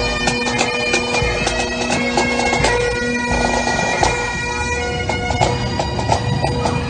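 Bagpipes playing a tune over their steady drones, with many sharp strokes throughout.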